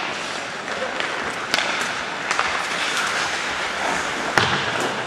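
Ice hockey in play: sharp clacks of sticks and puck, three times, the loudest a little over four seconds in, over a steady scrape-and-hiss of skates on the ice and voices calling out in the rink.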